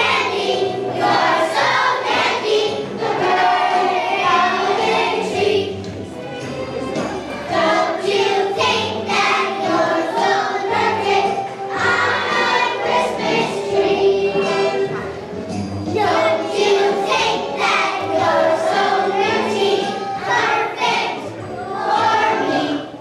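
Children's choir singing a holiday song with a musical accompaniment.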